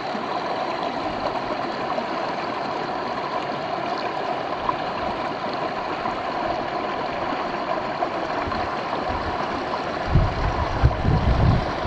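Shallow river running steadily over rocks. Near the end a few loud low thuds rumble under it.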